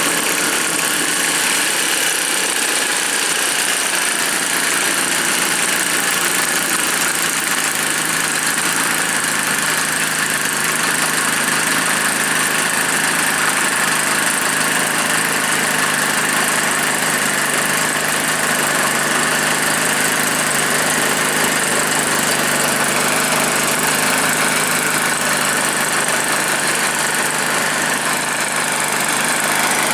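Homemade snowblower powered by a Druzhba chainsaw's two-stroke engine, running steadily.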